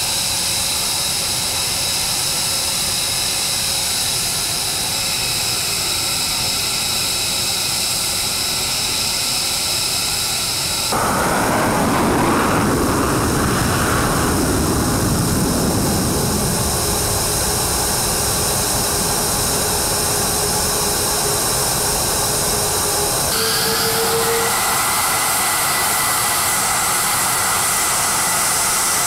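F-22 Raptor jet engines running on the ground: a steady high whine over continuous rushing noise. About eleven seconds in it turns louder and rougher for several seconds before settling back to a steady whine.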